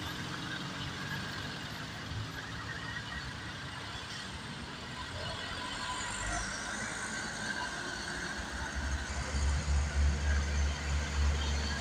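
Diesel truck engines running as trucks pass on the road; from about nine seconds in a deep, uneven rumble grows louder as another truck approaches.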